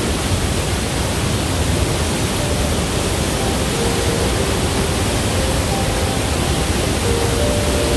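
Wapama Falls heard at close range: a loud, steady rush of falling water and spray.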